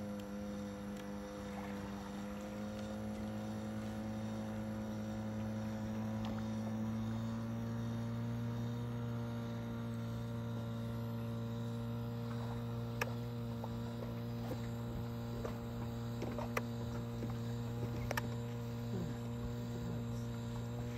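A steady electric motor hum made of several pitched tones, its pitch shifting slightly a few seconds in. A few faint clicks come in the second half.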